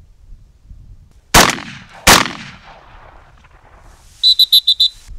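Shotgun fired twice in quick succession, the shots under a second apart, each with a ringing echo. Near the end comes a quick run of five short, high-pitched metallic clicks.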